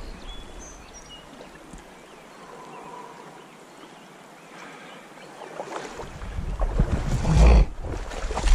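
Steady hiss of a flowing trout stream. From about six seconds in, loud low rumbling and knocking noise rises over it.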